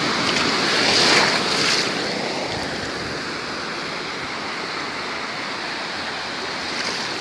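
Shallow seawater sloshing and splashing close to the microphone, louder and choppier for the first two seconds, then settling into a steady wash.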